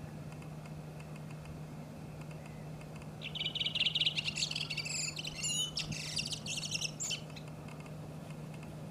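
Redwing singing one song phrase, starting about three seconds in and lasting about four seconds: a fast run of repeated high notes, then twisting whistles and chatter. A steady low hum runs underneath.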